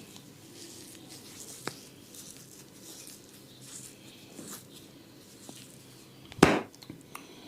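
Hands scratching and rubbing hair and scalp during a head massage, a soft scratchy rustling, with a sharp click about a second and a half in and a loud smack near the end.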